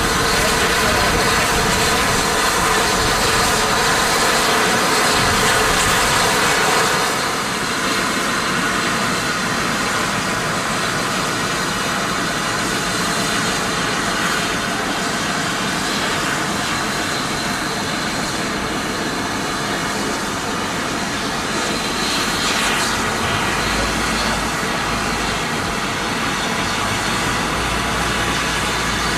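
Merchant Navy class Pacific steam locomotive standing in steam on a turntable, giving off a steady hiss of steam while it is slowly turned. The hiss eases slightly about seven seconds in, and a low rumble joins it near the end.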